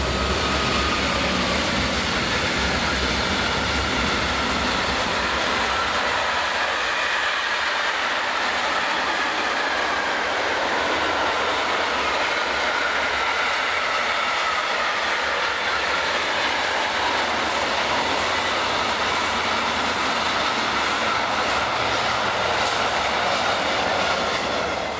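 Freight train hauled by an electric locomotive passing close at speed: a steady rush of wagon wheels on the rails, with thin squealing tones that drift slowly in pitch. The sound fades away near the end as the last wagons pass.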